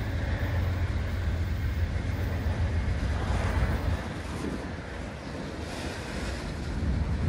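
Freight cars of a CSX train rolling past, with strong wind buffeting the microphone as a heavy low rumble that eases about four seconds in and builds again near the end.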